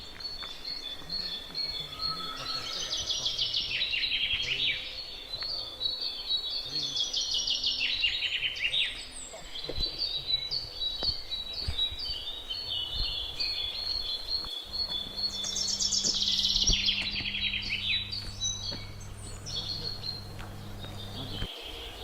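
A songbird singing: three loud phrases of fast, falling trills, with a string of short high notes between them.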